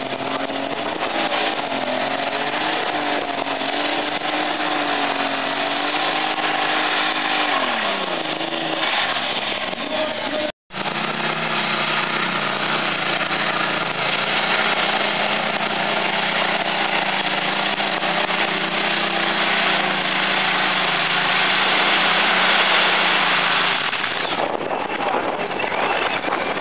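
Small modified pulling tractors running flat out while dragging a weight sled, their engines loud over a hiss of tyre and track noise. The first engine's note wavers and then falls away about eight seconds in, and after a brief dropout a second puller runs at a steady high pitch that drops off near the end as the pull stops.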